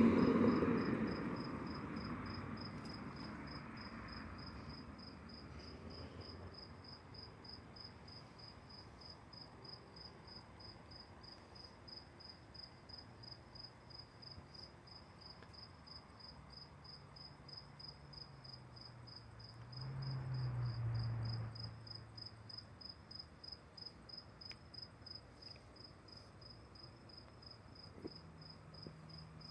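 Crickets chirping steadily in a fast, even, high-pitched pulse. A louder rushing sound fades out over the first few seconds, and about twenty seconds in a low hum swells and fades over a couple of seconds.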